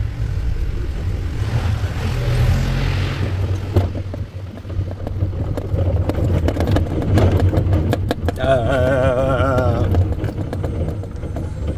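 Forklift running as heard from the driver's seat: a steady low rumble with frequent rattles and clatter from the cab and mast. About eight seconds in, a warbling tone sounds for a second and a half.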